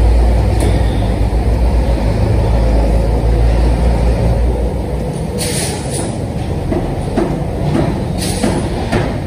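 Loud steady low rumble of workshop noise, with two short hisses about halfway through and near the end.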